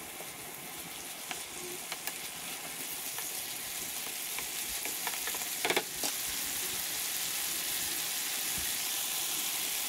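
Eggplant and minced pork in a sticky sauce sizzling in a frying pan while a wooden spatula stirs them. The sizzle grows steadily louder, with a few scattered clicks and one louder knock about six seconds in.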